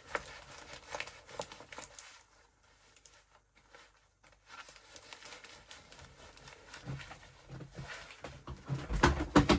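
Crinkling and rustling as a large diamond-painting canvas is handled and rolled up, with a quieter pause partway through. Near the end come louder knocks and a clatter as things are dropped.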